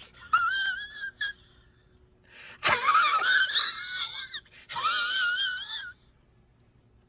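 The Zach Galifianakis laugh meme sound effect: a high-pitched, wheezing laugh in wavering squeals. A few short ones come first, then a longer, louder run of squeals from about two and a half to six seconds in.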